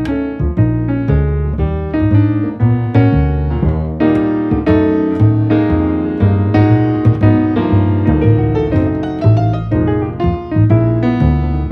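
Background piano music, a lively run of struck notes and chords.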